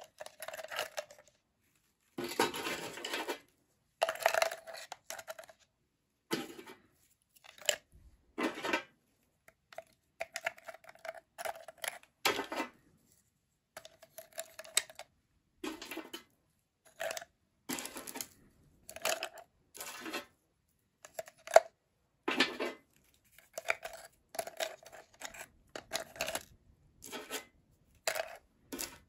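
Hard, glassy shards of peanut brittle clinking and rattling against each other and a clear plastic container as they are dropped in, in short bursts about once a second.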